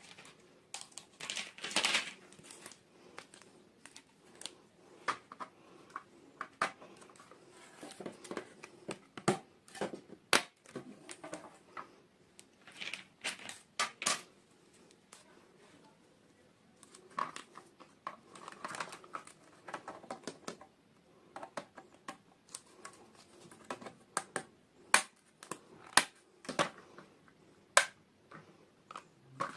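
Hands unboxing small plastic toys at close range: plastic wrapping crinkling in short spells and many irregular clicks and taps as small plastic pieces are handled and set down.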